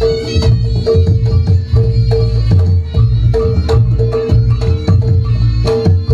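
Live reog gamelan accompaniment: drums and struck metal percussion playing a fast, steady, repeating rhythm.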